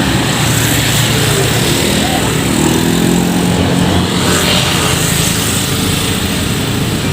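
Hino RN285 bus's diesel engine running as the bus moves off, its pitch rising for a second or so partway through as it speeds up, then settling.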